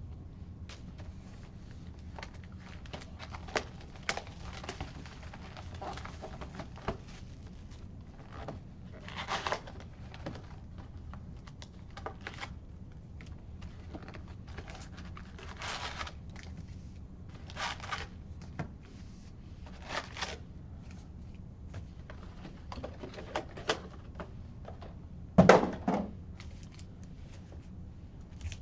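Trading-card packs, loose cards and a cardboard card box being handled on a desk: scattered taps and clicks with short rustling bursts, and a louder knock near the end.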